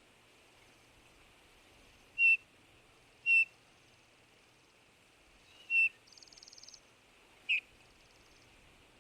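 Eurasian bullfinch giving its soft piping call: four short whistled notes spaced a second or more apart. A brief, quieter buzzy trill comes just after the third note.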